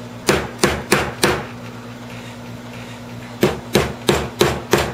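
Small ball-peen hammer tapping a little wall hanger into an MDF disc: four quick light strikes, a pause of about two seconds, then five more.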